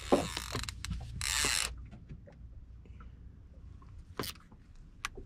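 Fishing reel's ratchet running in two short bursts, the second and louder one ending about a second and a half in, followed by a few scattered clicks and knocks.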